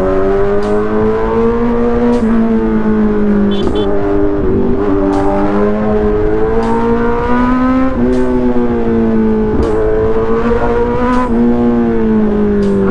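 Superbike engine and loud exhaust under way at speed. The engine note rises and then dips briefly every one and a half to two seconds as the throttle is worked, over a steady low rush of wind.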